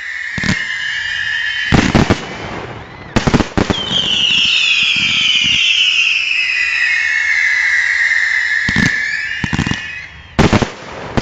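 Fireworks display at close range: sharp bangs of shells firing and bursting, several of them in quick clusters, over a dense chorus of whistling effects whose pitch falls as they rise away.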